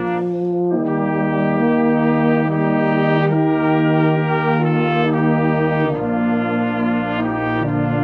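Brass band playing a slow piece in held chords, the harmony changing every second or two.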